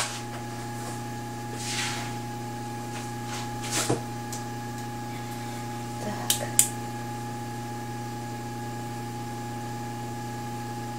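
Steady electrical hum of a running egg incubator, with a soft rustle about two seconds in, a knock at about four seconds and two sharp clicks a little after six seconds as the incubator and a candling lamp are handled.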